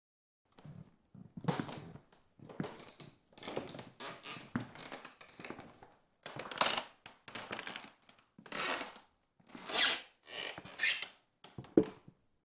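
A long run of creaking: a dozen or so drawn-out creaks in quick, uneven succession, the loudest near the end, finished by one short sharp knock just before it stops.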